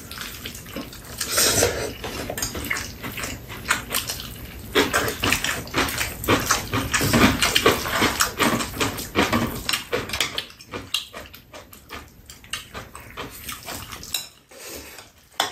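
Two people eating spicy mixed noodles with chopsticks: repeated clicking of chopsticks against bowls, with slurping and chewing. The clicks come thickest through the middle and thin out near the end.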